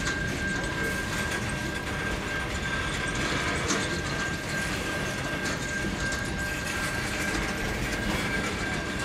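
Long freight train of boxcar wagons rolling past, a steady noise of wheels on rails with a thin, steady high whine over it.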